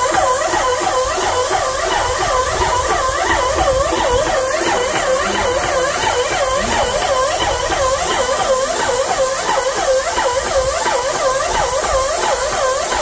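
Stone Hammer X5000 airless sprayer pumping massa corrida (wall putty). Its motor pitch dips and rises with each pump stroke about three times a second, over the hiss of the gun spraying.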